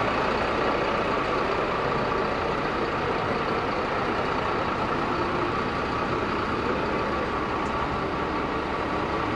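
A large vehicle's engine running steadily: a constant, unbroken noise with a faint hiss and no changes in speed.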